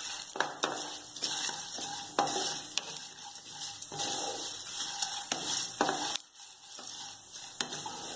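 Whole spices (coriander seeds, fennel, fenugreek and dried red chillies) sizzling in a little ghee and oil in a nonstick kadai as they are dry-roasted, with a spatula stirring and scraping them and light clicks against the pan. The sizzle drops for a moment about six seconds in.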